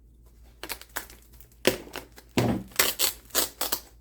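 Packaging being unwrapped by hand: irregular crinkling and rustling that starts about half a second in and gets louder and busier in the second half.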